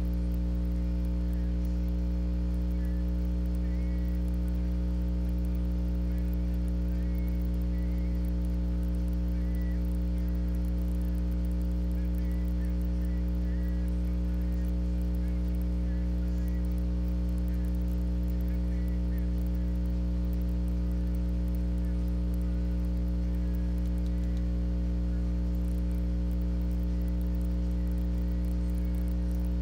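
Steady electrical mains hum: a constant low buzz with a stack of even overtones that does not change.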